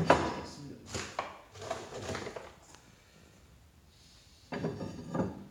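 A handful of short knocks and scrapes: the loudest right at the start, a few more within the first two seconds, then a pause and another cluster near the end.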